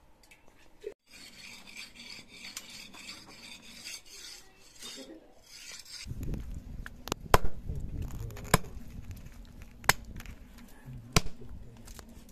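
A soft rasping rub for the first few seconds, then a heavy chopping knife hacking duck meat on a wooden chopping block: about six sharp chops a little over a second apart, the second one the loudest.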